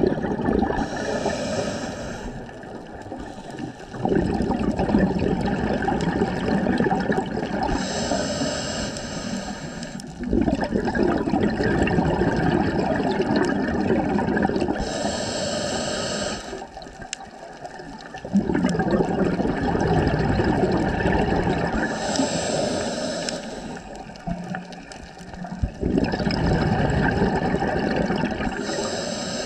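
Scuba diver breathing through a regulator underwater: a short hiss on each inhale, then a long rush of bubbling exhaust on each exhale, repeating about every seven seconds.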